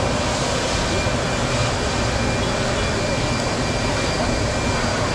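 Wood turbo stove burning hard, its small 12-volt electric blower forcing air into the wood fire: a steady rushing noise with no breaks.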